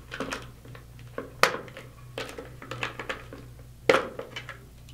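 Hard plastic clicks and knocks as a hard hat's shim and suspension clips are worked out of the slots in the shell, with two sharper snaps about a second and a half and four seconds in.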